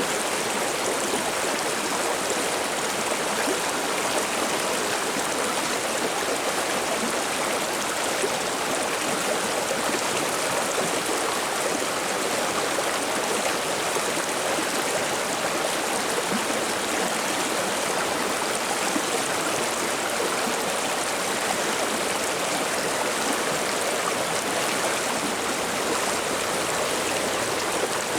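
Mountain river water babbling and flowing steadily, an even rushing splash with no pauses.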